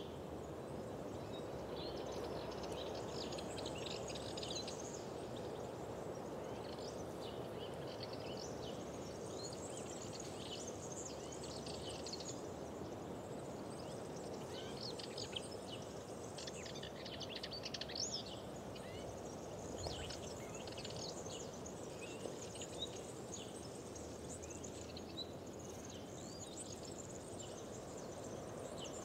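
Many small songbirds chirping and singing in short, overlapping phrases over a steady low rushing background.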